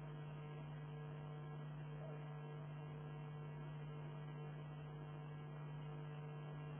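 Steady low electrical hum, with fainter steady tones above it, unchanging throughout.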